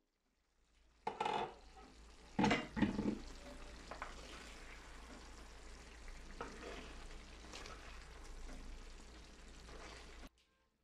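Pan of mixed-vegetable curry sizzling as a spoon stirs through the vegetables, scraping against the pan. A few louder clunks of the glass lid and spoon against the pan come between one and three seconds in, and the sound cuts off abruptly near the end.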